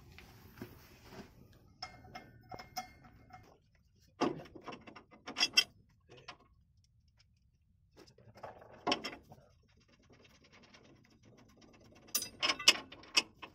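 Metal clanks and rattles of tools and drivetrain parts being handled during truck clutch disassembly. They come in a few short clusters, about four seconds in, around nine seconds and near the end, with quiet gaps between.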